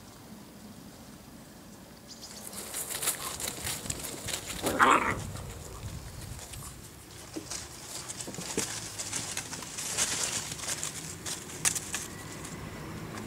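Whippet puppies playing and scuffling on grass and dry leaves, with rustling and scrabbling throughout and a short puppy yelp about five seconds in.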